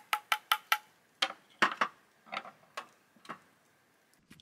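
Fork beating egg in an enamelware bowl, the tines clinking against the metal: a quick run of about five clinks in the first second, then slower, scattered clinks.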